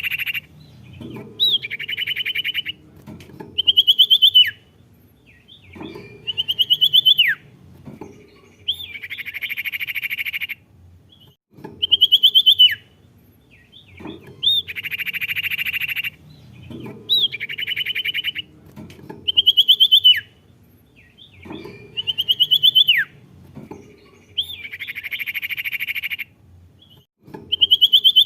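A sirtu songbird singing over and over: buzzy rapid trills about a second long alternate with short, sharp whistled notes that rise and then drop steeply. The phrase repeats every few seconds as a bird-song recording played to coax a caged sirtu into singing.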